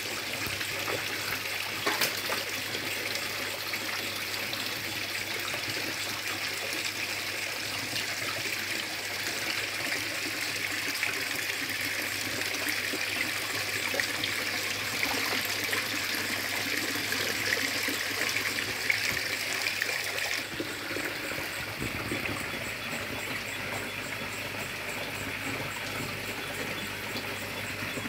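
A steady trickle of water pouring into a pond, splashing onto the surface. About two-thirds of the way through, the splashing turns duller and a little quieter.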